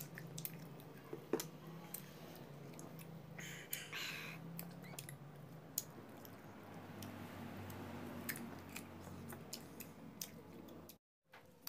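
Faint sounds of a toddler eating guava: soft chewing and scattered small clicks from handling the fruit, over a low steady hum. The sound drops out briefly near the end.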